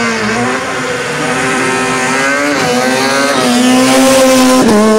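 Rally car's engine at full throttle approaching and passing close by, its pitch climbing and dropping back at each gear change, three or four times. It grows louder and is loudest as the car goes past near the end.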